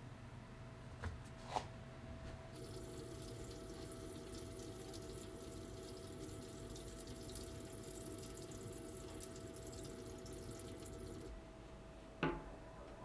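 Kitchen tap turned on and running steadily for about nine seconds, then shut off, with a couple of small clicks before it starts and a sharp clack just after it stops.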